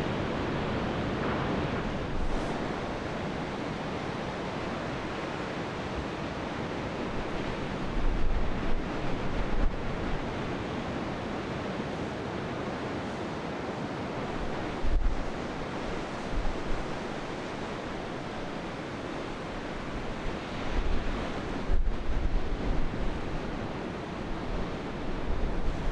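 Sea surf washing and breaking on the shore, a steady rushing hiss, with wind buffeting the microphone in several low rumbling gusts.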